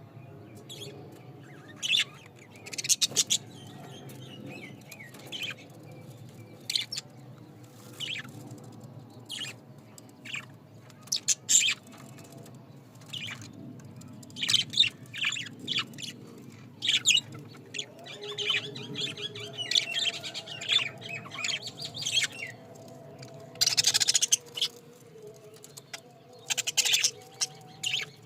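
Pet budgerigars chirping in many short, high bursts throughout, with a louder, harsher burst lasting about a second near the end. A steady low hum runs underneath.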